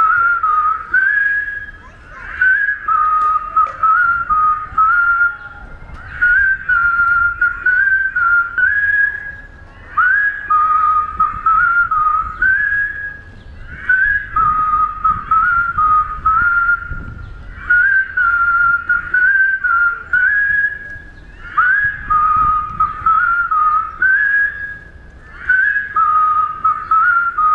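A large crowd whistling together, one short tune repeated over and over in phrases of about four seconds with brief dips between them.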